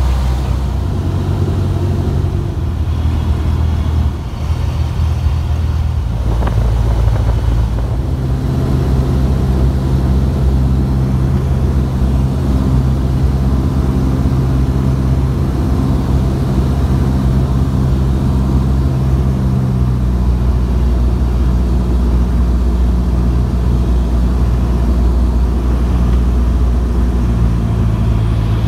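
Cessna 172's piston engine and propeller droning steadily, heard from inside the cabin on the descent to landing. The engine note shifts a few times, with a brief dip in loudness about four seconds in.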